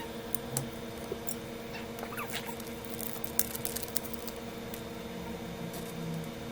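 Steady hum from bench equipment with scattered light ticks and scrapes of metal tools working at a PS5's HDMI port during solder rework.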